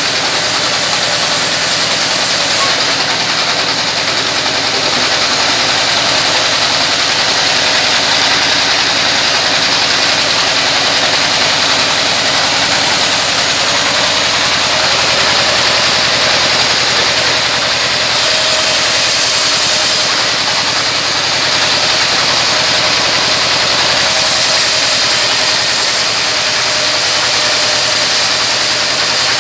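Single-cylinder stationary diesel engine running steadily, driving a vertical band sawmill as it rips a wooden beam lengthwise. The noise is loud and continuous, and its upper hiss changes a few times as the cut goes on.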